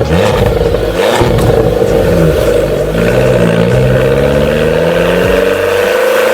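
Abarth 595's 1.4 turbo four-cylinder running through a Magneti Marelli aftermarket exhaust, the engine note rising and falling several times, then climbing steadily over the last two seconds as it accelerates.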